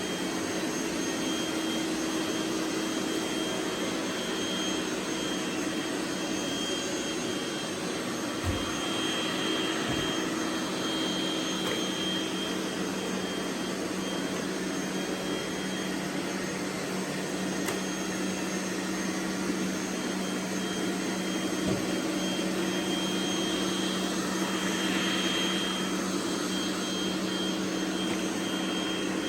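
Robot vacuum cleaners running: a steady motor whir and hiss with a few steady tones, and a few faint knocks.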